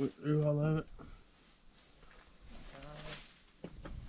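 Crickets or similar insects chirping faintly and steadily in the background, with a short spoken word at the start, a fainter voice about three seconds in, and a couple of light clicks near the end.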